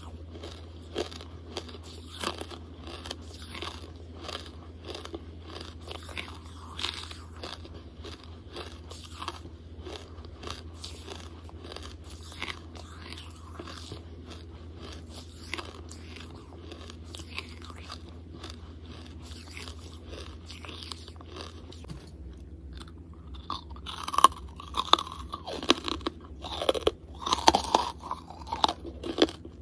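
Close-miked chewing of hard, brittle charcoal: a steady run of small crunches over a low hum. About three-quarters of the way in, the crunches turn louder and sharper as fresh bites are taken off the lump.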